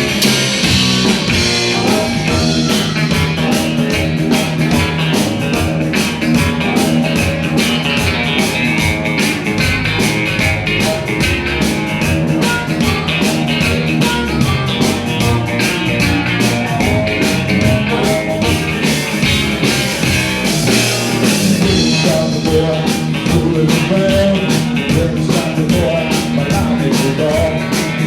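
Rock and roll band playing live: guitar and drums with a steady, driving beat.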